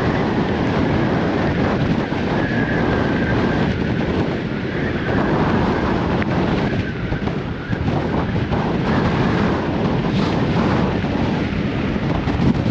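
Strong gusting wind buffeting the camera's microphone: a loud, uneven rumbling noise that eases briefly about seven and a half seconds in.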